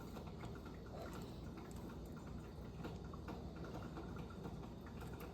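Eggs frying in a pan on the stove: a faint, steady sizzle with small irregular crackles.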